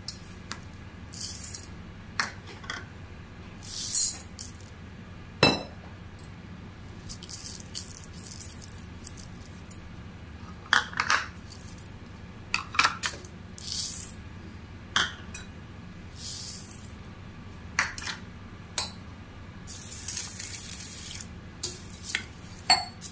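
Dry lentils and split dals poured in bursts from small ceramic bowls into a stainless-steel bowl of oats, the grains rattling against the metal, with sharp clinks of bowl against bowl and a faint steady hum underneath.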